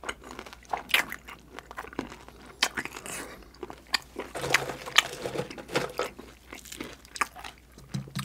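Close-miked crunching and chewing of crispy deep-fried chicken skin, a run of irregular sharp crunches as the mouthful is bitten and chewed.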